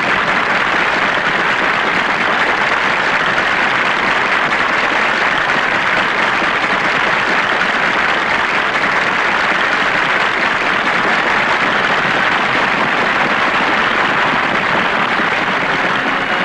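Crowd applauding in a long, steady ovation that does not let up.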